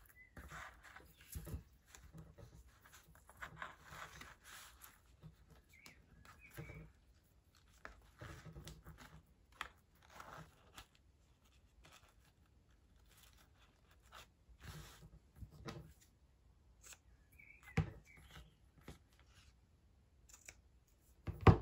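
Ribbon and paper rustling softly as a ribbon is wrapped and tied into a bow around a paper gift envelope. Near the end come sharp snips, the last the loudest, as scissors cut the ribbon.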